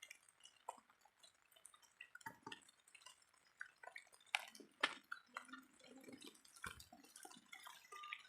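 Faint, irregular drips and taps of heavy rain falling, with scattered sharp ticks of single drops.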